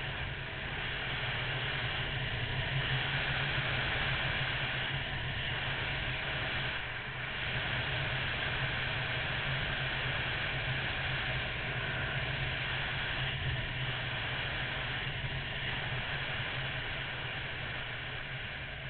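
Wind rushing over the microphone of a camera mounted on a Honda VFR800, with the low, steady hum of the bike's V4 engine underneath, while riding at a steady cruising speed. The sound eases off slightly near the end.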